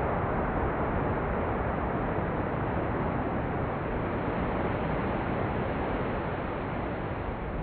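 Rough sea surf breaking against rocks and a shingle beach: a steady, even rush of wave noise with no single crash standing out.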